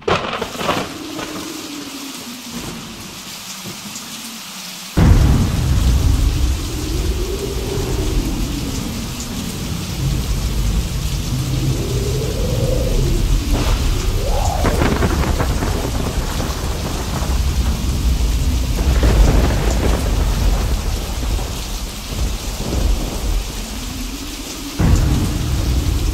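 Thunderstorm: steady heavy rain with deep rolling thunder, a loud thunderclap breaking in about five seconds in and another near the end. A low tone slides up and down in pitch over the rain.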